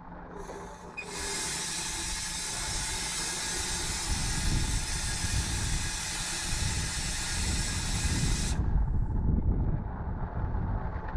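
Compressed air hissing loudly from an ALn 663 diesel railcar's air brakes as the train draws to a stop. A brief puff comes first, then a steady hiss of about seven seconds that cuts off sharply. A low diesel rumble of the slowly rolling railcar lies underneath.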